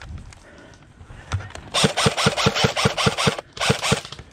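Airsoft gun firing in automatic bursts, sharp evenly spaced shots at about seven a second. One burst of about a second and a half starts a little under two seconds in, and a short burst follows near the end.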